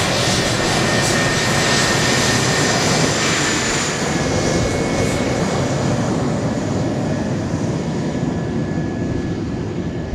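Twin General Electric J79 turbojets of a McDonnell Douglas F-4EJ Kai Phantom running at taxi power as the jet taxis past. A steady rushing noise carries a high, steady whine, and the hiss grows fainter over the last few seconds as the aircraft moves off.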